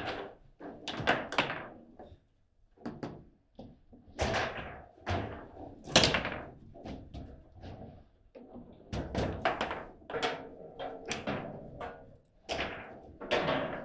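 Table football in play: a rapid, irregular run of sharp knocks and thunks as the ball is struck by the player figures and rods and bangs against the table, the hardest hit about six seconds in.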